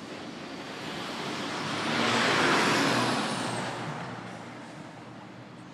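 A road vehicle driving past, its noise swelling to a peak about two to three seconds in and then fading away, with a faint high whine that drops in pitch as it goes by.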